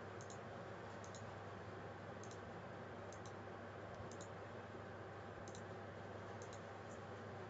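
Computer mouse clicking faintly, about eight quick press-and-release clicks spaced irregularly, over a steady low hum of room noise.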